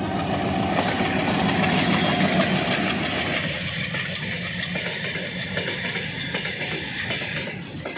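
Twin ALCO diesel locomotives passing close with a heavy engine rumble, followed after about three seconds by the freight wagons rolling by, their wheels clacking over the rail joints as the sound slowly fades.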